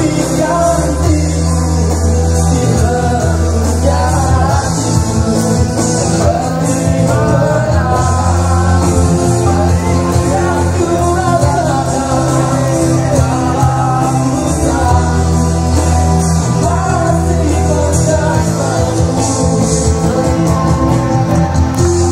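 Live band playing a song: a man singing into a microphone over electric guitar and drums, with a steady bass line underneath.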